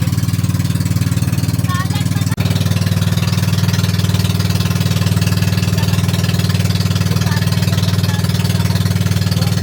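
Vehicle engine running steadily, with a brief dropout about two seconds in.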